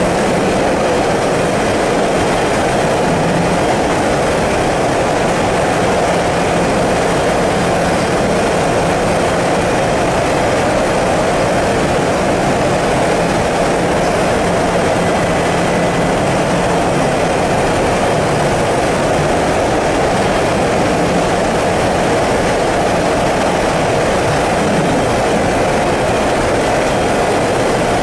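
Potato French-fry processing machinery running: a loud, steady mechanical drone with a faint low hum underneath.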